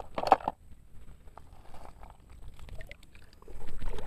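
Sand crunching and scraping as it is dug through in a toy dump truck's bed to uncover buried toy vehicles: a run of short gritty crunches, with a louder burst of scraping near the end.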